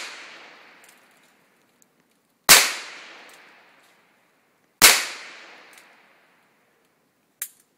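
Two gunshots about two and a half seconds apart, each cracking sharply and then echoing away over about a second, fired up into a tree at a treed raccoon. The echo of a shot just before is still fading at the start, and a short sharp click comes near the end.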